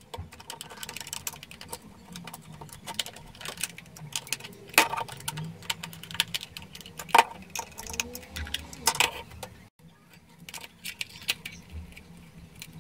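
Small screwdriver driving the screws of a digital multimeter's plastic back cover, sped up: a quick run of clicks, taps and scrapes of metal on plastic as the case is handled.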